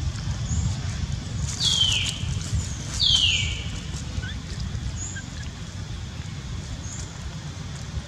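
Baby macaque giving two high-pitched crying calls, each falling in pitch, about a second and a half apart, over a steady low rumble.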